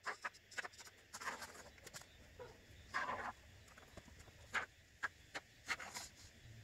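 Short hissy spurts from a can of expanding sealant foam being sprayed into gaps between rocks, mixed with scattered sharp clicks and knocks.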